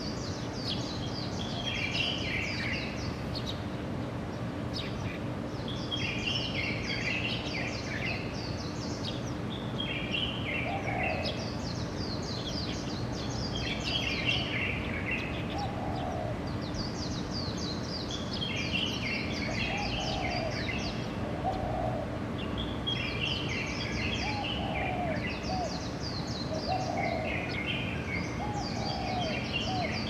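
Songbirds singing in trees: a high, tumbling song phrase repeated every few seconds. From about a third of the way in, a lower short hooting call comes in, often twice in a row. A steady low hum runs underneath.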